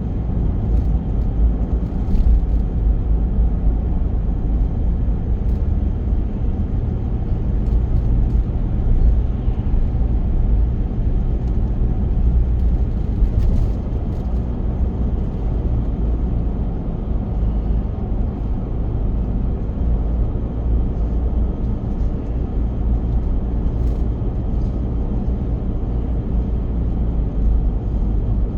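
A car driving at steady speed: a continuous low rumble of engine and tyre noise, heard from inside the cabin.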